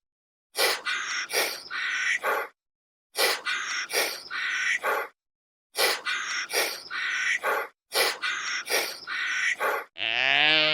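Animal calls: short rough, raspy calls in runs of three or four, broken by abrupt silent gaps, ending near the end with one longer pitched call that dips and rises.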